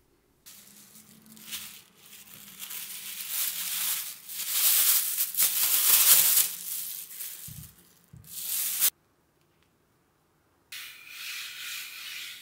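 Flour sprinkled from a small glass bowl onto a wooden board: a long hissing patter that builds, peaks, and then cuts off. After a short pause, a hand rubs the flour across the board.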